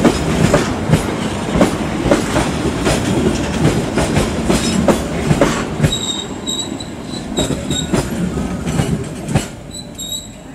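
Passenger train coaches rolling past, their wheels clacking over the rail joints, with thin high wheel squeals coming and going from about halfway through. The noise falls away near the end as the last car goes by.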